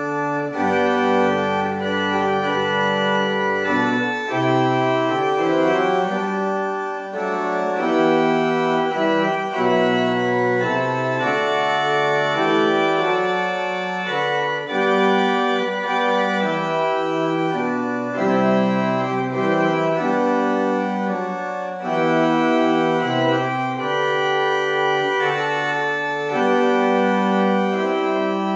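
Organ music: full held chords that change every second or so, over sustained low bass notes.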